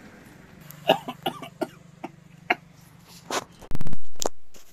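A few short, sharp clicks and knocks over a faint steady hum, then a loud low rumble with a click near the end as a phone camera is handled and swung down.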